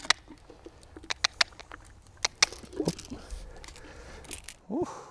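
Scattered sharp clicks and clinks of a mule's tack (bit, bridle fittings and stirrup irons) as the saddled mule shifts beside a mounting block, with a short voice sound near the end.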